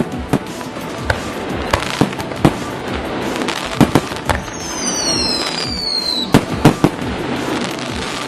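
Fireworks going off: a quick run of sharp bangs over continuous crackling. Near the middle, a high whistle falls in pitch for about two seconds.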